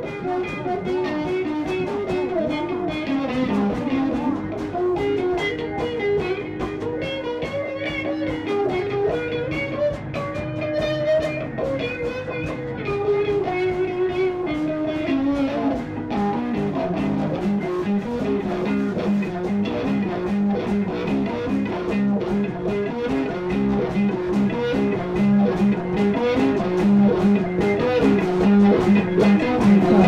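Instrumental music led by plucked guitar, a melody wandering up and down, then settling into a repeating low figure about halfway through and growing louder toward the end.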